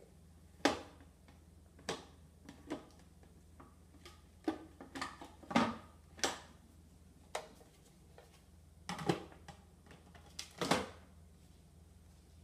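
Plastic clicks and knocks of a food processor's lid and feed-tube pusher being fitted and locked onto the bowl: a dozen or so sharp separate clicks, the loudest about a second in, near the middle and near the end.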